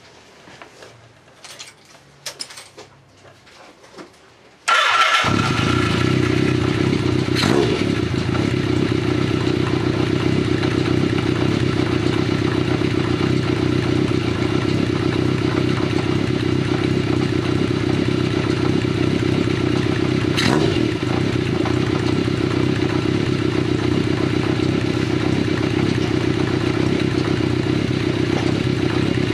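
Kawasaki Z550FX's air-cooled inline-four motorcycle engine catches suddenly after a few faint clicks, about four and a half seconds in, then runs steadily through chrome short exhaust pipes fitted with 70×25 mm inner silencers.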